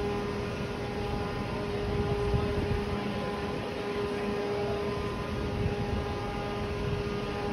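Steady running noise inside a moving train carriage: a constant rushing rumble with a steady motor hum.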